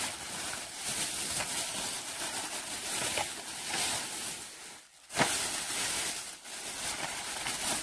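Clear plastic bag packaging crinkling and rustling as it is pulled open and handled, with a brief pause about five seconds in.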